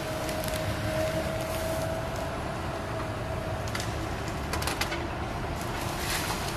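Tracked excavator running with a steady whine as its bucket tears up tree roots and branches; the wood cracks and snaps several times in the second half.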